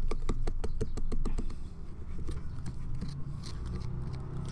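Small carving knife sawing and scraping through pumpkin rind: a quick run of clicking strokes, several a second, for the first second and a half, then slower, sparser ones.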